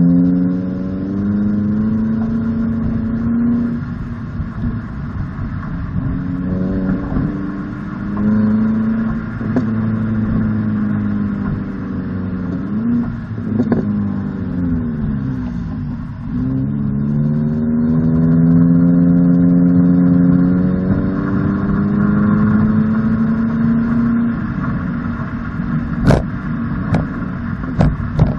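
11th-generation Toyota Corolla's 1.8-litre four-cylinder engine heard at the tailpipe through a Borla S-Type exhaust while driving, the revs climbing through paddle-shifted gears and dropping in pitch at each upshift, then falling away as the car slows. A few sharp pops near the end as the revs fall off.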